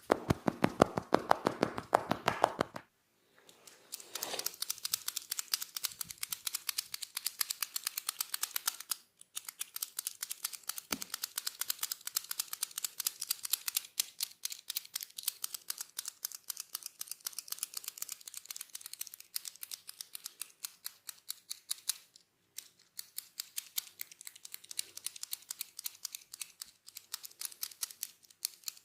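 Fast, even tapping from a masseur's hands on the head and hair during a head massage, many strikes a second, with short breaks about three, nine and twenty-two seconds in.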